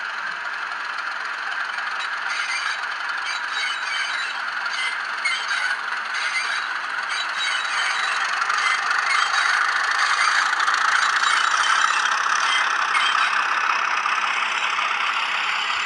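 Sound decoder in a model Class 31 diesel locomotive playing its engine sound through the model's small speaker as the locomotive runs past, growing louder towards the middle of the pass, with light clicking over it.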